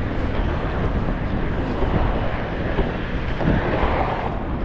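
Wind rumbling and buffeting on the camera microphone, a steady low noise, with a faint street sound swelling a little near the end.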